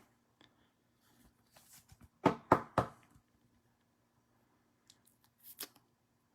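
Three quick, sharp knocks about a quarter second apart, a hard object tapped on a tabletop during card handling, followed later by a few faint clicks. A faint steady low hum sits underneath.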